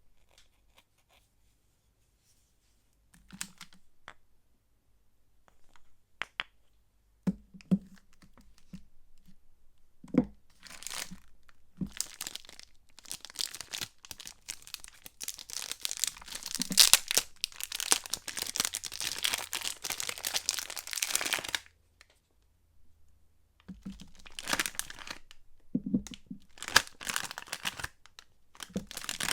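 Soap wrapping being torn open and crinkled by hand. A few soft knocks and clicks come first, then a long stretch of steady tearing and crinkling, a short pause, and more bursts of crinkling near the end.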